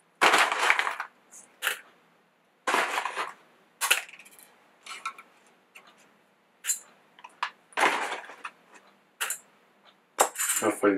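Whole coffee beans rattling into a small steel cup on a kitchen scale, poured in short bursts from a crinkling coffee bag.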